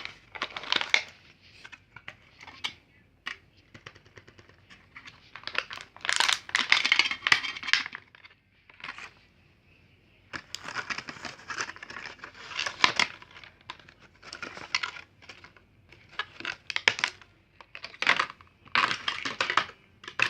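Packaging of a set of Bluetooth earphones being opened by hand: crinkling, tearing and rustling in irregular bursts, with sharp clicks.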